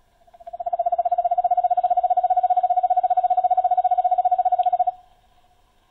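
Screech owl's call played back from a sound plate by a Microsonics 300 microphonograph through its small built-in speaker: one long, fast trill on a single pitch lasting about four and a half seconds, stopping about five seconds in.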